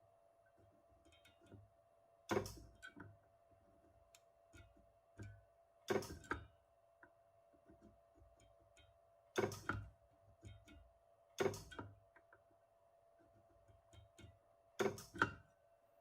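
Sharp clicks and snaps, most in close pairs, repeating every two to four seconds, with softer ticks between them over a faint steady hum.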